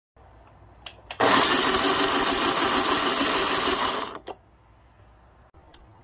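Breville 870's built-in conical burr grinder: two clicks, then the grinder motor runs with a high whine for about three seconds and stops, followed by a click, then another near the end. The grinder's drive gear is broken.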